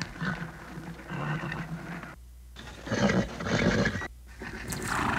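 Horses at a hitching rail vocalising, in three bursts with two brief silences between them.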